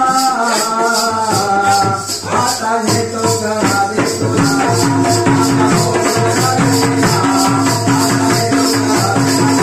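Live folk song: a male singer over a drum beat and a fast, steady jingling rhythm. The sung line bends in pitch through the first few seconds, after which short repeated notes and the beat carry on.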